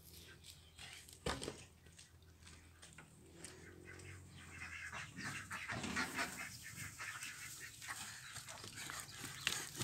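Faint farmyard animal calls, with many short calls crowding together in the second half, and a single sharp knock about a second in.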